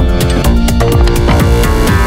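Electronic music with a steady beat and held synth notes.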